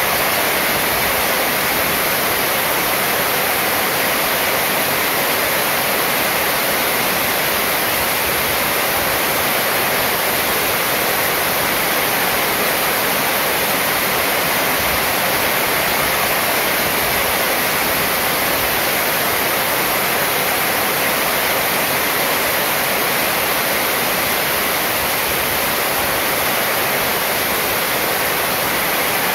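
Heavy rain falling steadily on a metal roof, an even, unbroken wash of sound.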